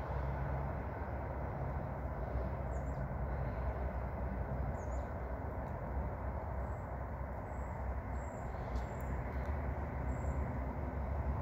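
Steady low outdoor rumble with a few faint, short, high bird chirps scattered through it.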